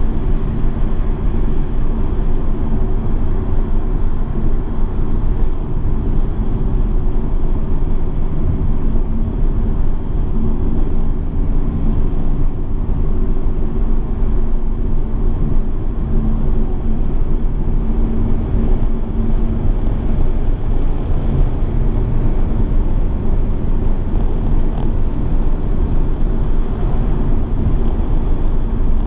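Mercedes-Benz E 220d estate with its four-cylinder diesel, driving at a steady pace: continuous rumbling road, tyre and wind noise with a low engine drone, unchanging throughout.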